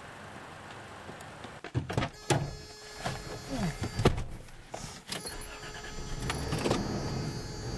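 A car door being opened and shut with several sharp clunks, then the car's engine starting near the end and settling into a steady low running.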